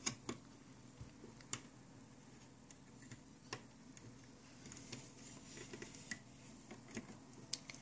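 Faint, irregular small clicks and taps of a loom hook against the plastic pegs of a Rainbow Loom as rubber bands are lifted and moved from peg to peg.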